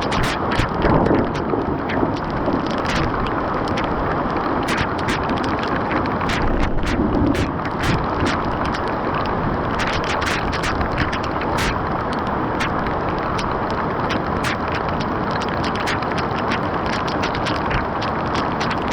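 Steady rush of floodwater pouring away through a drain, with many sharp ticks and taps scattered throughout.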